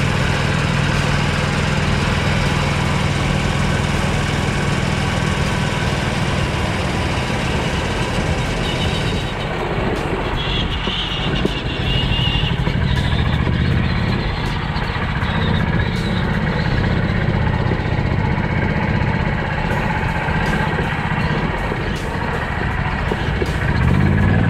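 Steady driving noise from motors and tyres on the move, with a low hum. A broad hiss drops away about nine seconds in, and a rising whine comes near the end.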